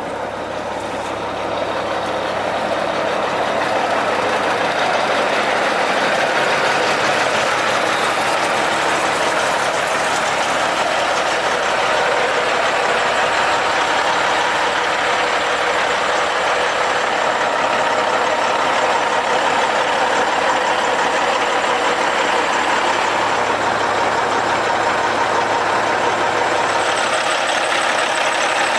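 Caterpillar C15 15.2-litre diesel engine of a heavy highway truck idling steadily, a continuous even running sound that grows slightly louder about two seconds in.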